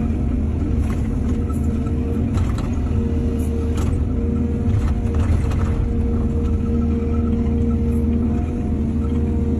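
Excavator diesel engine running steadily with a low rumble, with several short knocks from the machine at work scattered through.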